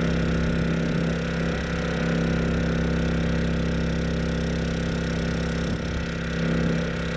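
Honda EU2200i inverter generator's single-cylinder four-stroke engine, converted to run on propane, running at a steady speed under a load of about 1,500 watts. It makes an even, unchanging hum.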